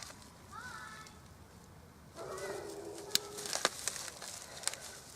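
Bubble wrap popped by hand: a few sharp single pops in the second half. A faint voice-like murmur comes in between them.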